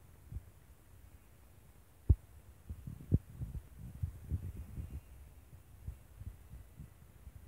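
Low, irregular thumps and rumble of handling noise from a hand-held phone, with a sharp knock about two seconds in, another a second later, then a run of softer bumps.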